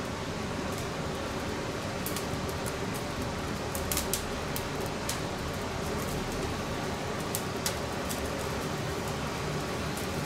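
Straw fire burning under a wire grill: a steady rush of flame with scattered sharp crackles, the loudest about four seconds in, as a bonito fillet is seared.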